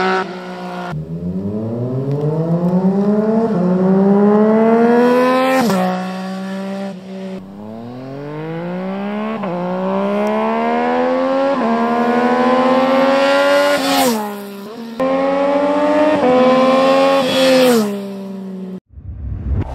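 Yamaha MT-09's three-cylinder engine through an Akrapovic exhaust with no dB killer, accelerating hard with quickshifter upshifts. The pitch climbs through each gear and drops sharply at every shift, several times over. Music cuts in just before the end.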